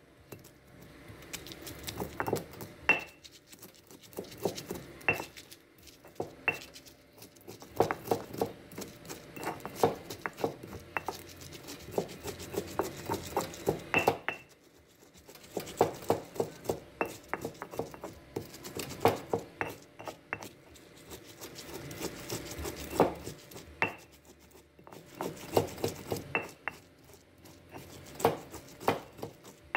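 Stone pestle pounding and grinding garlic and whole spices in a volcanic-stone molcajete: sharp stone-on-stone knocks and scraping in runs, with a few short pauses.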